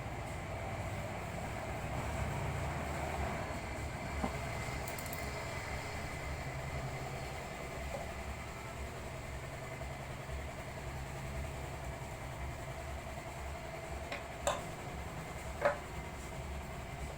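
Steady low background hum with a few light clicks and taps of small plastic speaker parts being handled during reassembly; the two sharpest clicks come near the end.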